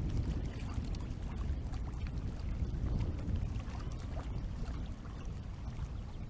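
Low rumbling wind noise on the microphone, with faint scattered small clicks.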